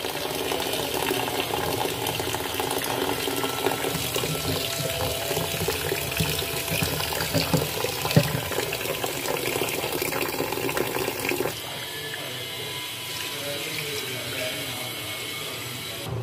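Tap water running into a plastic bowl of rice in a stainless steel sink as the rice is rinsed, a steady splashing stream. About two-thirds of the way through the sound drops suddenly to a quieter level as the flow stops.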